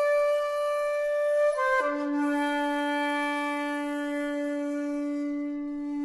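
Background music: a breathy solo flute holds a long note, then slides down about an octave a little under two seconds in and holds the lower note.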